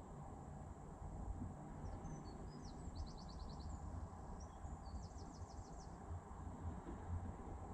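A small bird twittering in two short, rapid trills of repeated high chirps, about two and five seconds in, over a faint low rumble.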